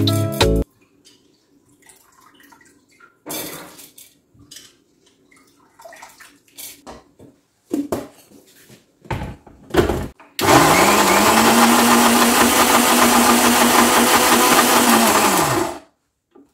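Electric mixer grinder with a stainless steel jar grinding rice into batter: the motor spins up about ten seconds in, runs steadily for about five seconds, then winds down. Before that there are a few clatters of the steel jar and its plastic lid being handled.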